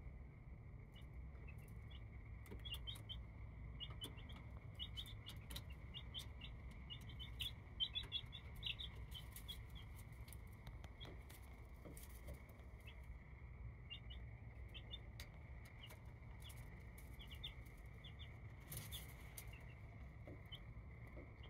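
Baby chicks peeping in short high chirps, busiest for several seconds after the start and then more scattered, with light clicks mixed in. A steady faint high tone runs underneath.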